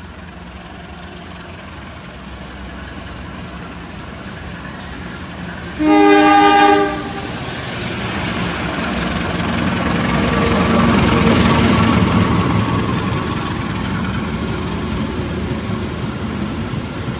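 Jakatingkir passenger train running, its rumble growing louder, with one horn blast of about a second midway. Loud rushing rail noise follows, peaking a few seconds after the horn and then easing slightly.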